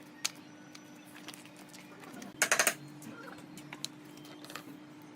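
Scattered light clicks and taps over a steady low hum, with a quick run of about five sharp, loud clicks about two and a half seconds in.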